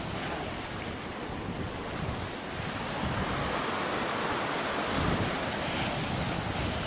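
Sea surf breaking and washing up a sandy shore against a rock breakwater, in a steady wash of noise, with wind buffeting the microphone.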